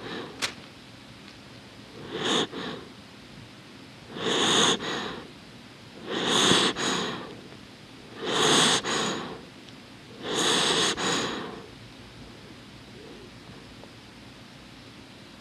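Small dog asleep, breathing through its nose right at the microphone: six noisy breaths about two seconds apart, each with a faint click in it. The breaths stop about eleven seconds in.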